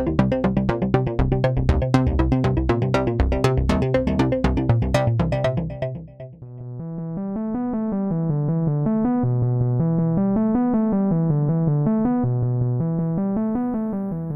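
Synthesizer demo audio run through the Glitchmachines Subvert distortion plugin. For about six seconds it is a dense, clicking rhythmic pattern over a low bass. Then, after a brief drop, a pitched synth line of repeating notes plays over a bass that steps up and down.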